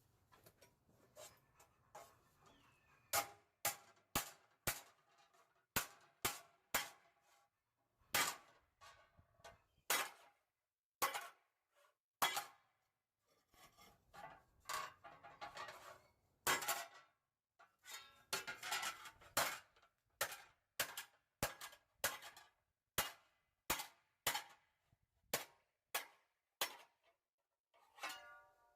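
Hammer blows on a piece of sheet metal laid over steel channel on an anvil, dishing it cold. The strikes are sharp and irregular, about one or two a second, with short metallic ringing and a few clusters of quicker taps.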